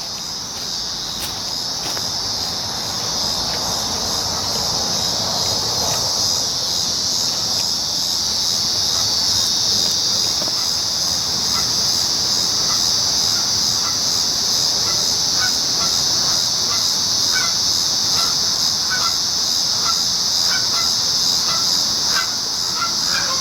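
Cicadas droning in a loud, steady chorus. From about halfway through, short chirps repeat a couple of times a second over the drone.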